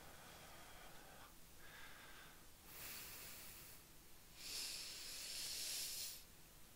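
A man breathing heavily through slow, effortful arm circles: two hissing breaths, a short one about three seconds in and a longer, louder one about four and a half seconds in.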